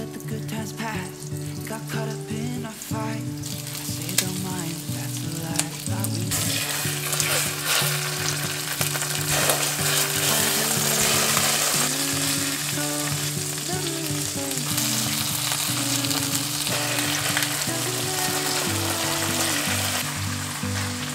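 Chicken wings sizzling as they pan-fry in a nonstick frying pan, the sizzle growing louder and denser about six seconds in, over soft background music.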